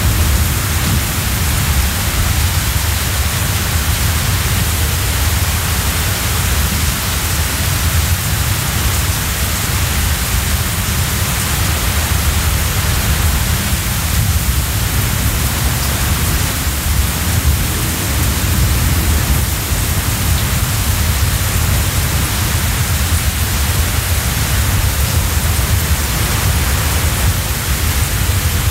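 Typhoon wind blowing strongly and steadily: a constant deep rumble under a loud hiss, with no separate gusts standing out.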